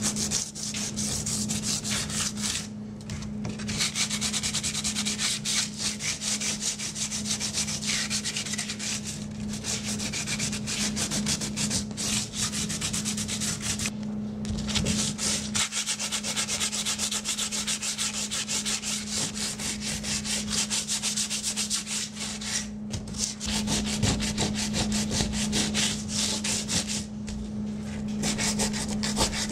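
Hand sanding with a folded piece of sandpaper: rapid back-and-forth rubbing strokes along the repair groove of a polyethylene kayak hull, scuffing the surface so the next epoxy coat will bond. The strokes stop briefly a few times.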